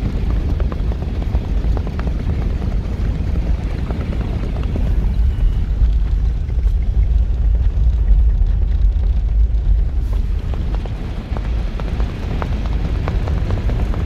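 Heavy low rumble of wind buffeting the microphone over a running vehicle, with faint irregular clicks and no clear hoofbeat rhythm.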